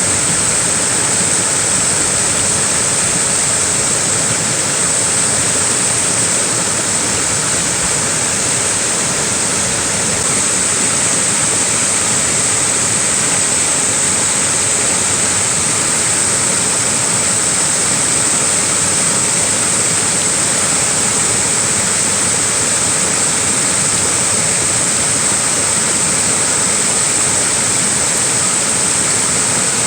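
Small waterfall: a steady, continuous rush of falling water, with a bright hiss on top.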